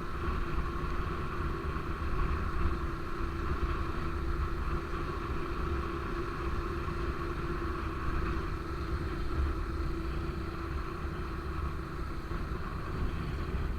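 Motorcycle engine running at a steady cruise, with a constant low wind rumble on the microphone.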